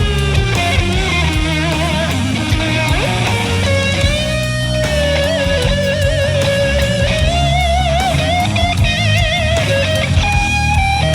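Guitar music: a lead guitar melody with wide vibrato on its held notes, over a steady bass and a beat.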